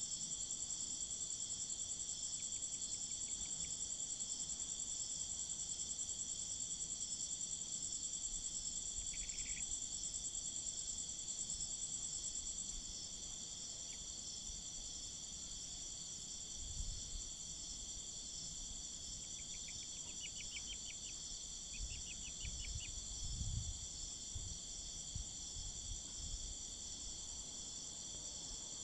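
Steady chorus of crickets trilling in several shrill layers; the highest layer drops away about halfway through. A few faint short trills and soft low thumps come in the second half.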